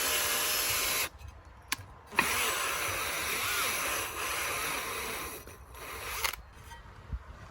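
Cordless drill spinning a brush inside a corroded propeller bore, scrubbing it clean. It runs for about a second, stops briefly, then runs again for about four seconds before stopping, with a few light clicks after.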